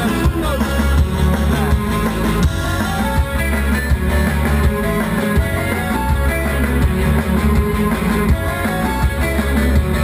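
Rock music: a band playing guitars over a drum kit at a steady beat.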